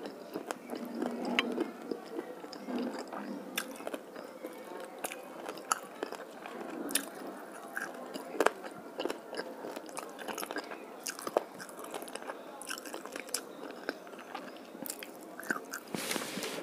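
Close-up chewing and crunching as a person eats a small fish head, bones and all, with many irregular crisp clicks and crackles.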